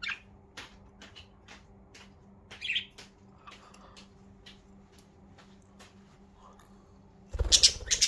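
Pet budgerigars giving short, scattered chirps, one a little louder about two and a half seconds in. Near the end comes a loud, rough rustling burst.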